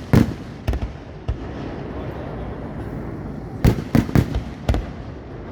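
Professional category 4 display fireworks: shells bursting with sharp bangs, one loud bang right at the start, two lighter ones soon after, then a quick cluster of four bangs a little past halfway.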